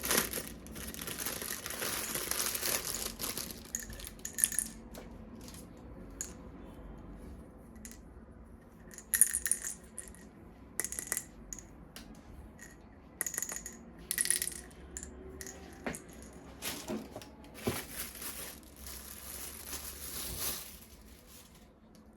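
Plastic toy parts and packaging being handled: a rustle of wrapping in the first few seconds, then scattered sharp clicks and clinks of small hard plastic pieces.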